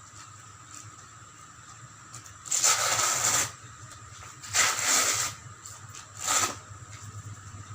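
Velcro of a blood pressure cuff being pulled apart: three rasping rips, the first about a second long, then a shorter one, then a brief last one near the end.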